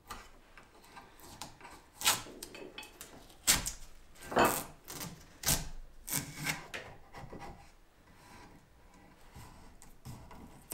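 Masking tape being peeled off the corners of a small wooden box, a run of short ripping and scraping strokes that are loudest in the middle, with a few quieter rubs either side.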